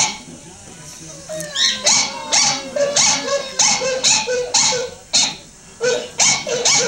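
A Boston Terrier howling in a quick run of short yelps, about two or three a second, starting about a second and a half in.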